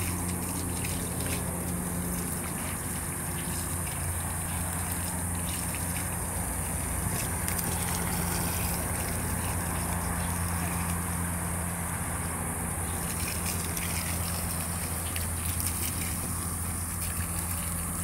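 Water gushing steadily from the open end of a garden hose, a continuous hiss, with a steady low hum underneath.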